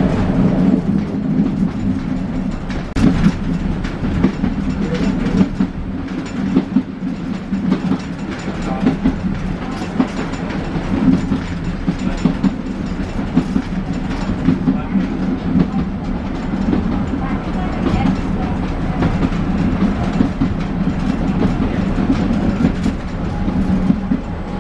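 Narrow-gauge train under way, heard from inside the coach coupled to its ZDM5 diesel locomotive: the locomotive's engine drones steadily while the wheels clack over rail joints and the coach rattles in frequent short knocks.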